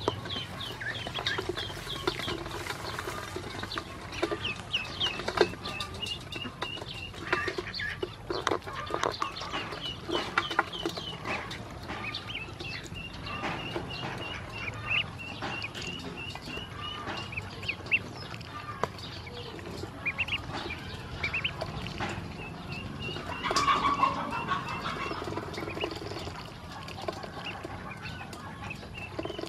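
A group of domestic ducklings peeping continually: short high chirps, often in quick repeated runs. Bills and feet click and tap on the stainless steel bowl as they peck at feed and drink.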